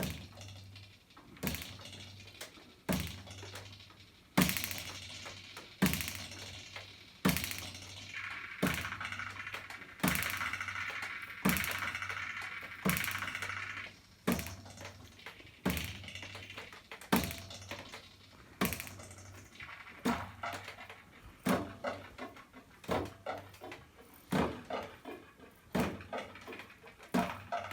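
Ruler sound effects: a ruler knocked against a hard surface again and again, at first about once every second and a half and faster later, each hit ringing briefly over a steady low hum.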